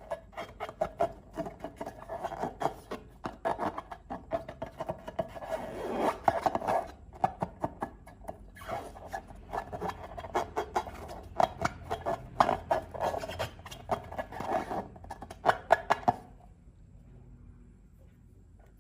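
Glossy slime being squished and stirred by hand: a dense run of wet clicks and crackles. It pauses briefly about seven seconds in and stops about sixteen seconds in.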